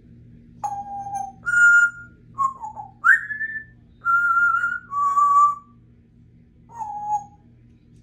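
Congo African grey parrot whistling a tune of about seven clear notes with short gaps between, some held level and one gliding upward.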